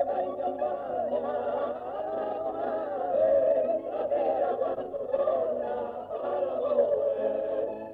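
Background music of several voices singing together, choir-like, with sustained wavering notes.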